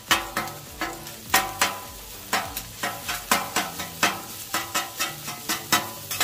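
Metal spatulas chopping crispy hash brown patties on a flat-top griddle, their edges clacking against the griddle top about four times a second at an uneven pace. The food sizzles steadily underneath.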